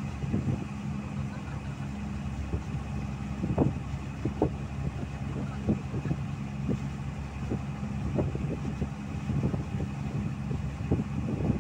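Engine of a wooden fishing boat running steadily under way, a low hum, with irregular low thumps every second or so from waves against the hull or wind on the microphone.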